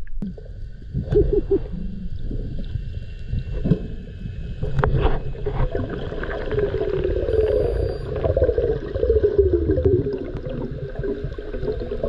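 Underwater sound picked up by a submerged camera: a steady low rumble of water with gurgling and a few knocks, and a wavering hum that rises and falls in pitch through the middle.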